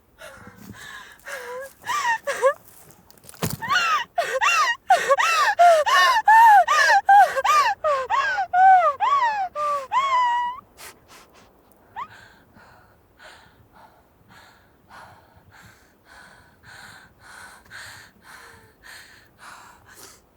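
A person gasping in panic: loud, rapid, voiced gasps and cries, several a second, for about the first ten seconds. These give way to quieter, steady heavy panting.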